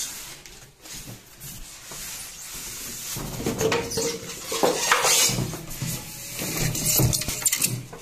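Unpacking noise: a cardboard carton is lifted off a washing machine with scraping and knocks, then a non-woven dust cover rustles as it is pulled off. It is busier and louder from about three seconds in.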